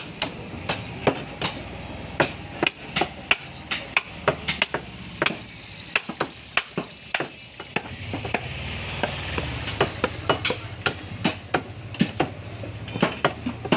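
Heavy butcher's cleaver chopping beef on a wooden log chopping block: a steady run of sharp chops, roughly two to three a second. A low hum sits underneath from about the middle until near the end.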